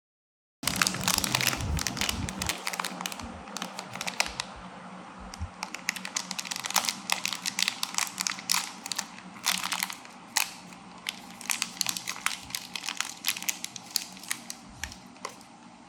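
Crinkling, clicking and rustling of vape kit packaging being handled and opened, in quick irregular bursts that start abruptly under a second in.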